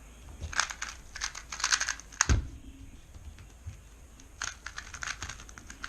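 YJ MGC 2x2 V2 speedcube being turned fast, in two quick bursts of plastic clicking and clacking, with a single loud thump at the end of the first burst about two seconds in.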